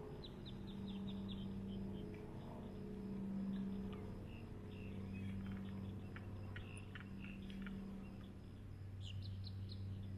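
Small birds chirping in many short calls over a steady low hum that swells and fades.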